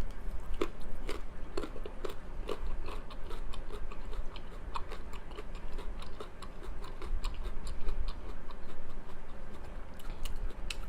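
A person chewing food close to the microphone: a quick, irregular run of wet mouth and teeth clicks, over a low steady hum.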